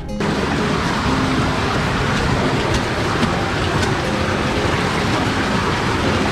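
Steady, loud rushing of glacial meltwater running through a narrow ice channel in the glacier.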